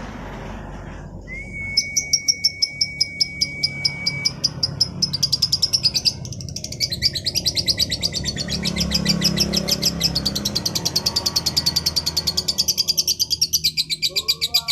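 Female lovebird calling in long, rapid runs of high, sharp chirps, speeding up into a continuous chatter partway through.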